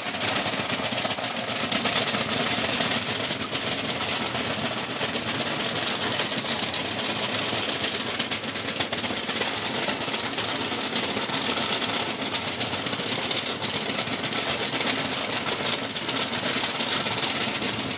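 Small electric gear motors of a homemade RC excavator running continuously as the machine turns on its tracks and swings its upper body, a steady, dense whirring buzz with a fine rattle of gears.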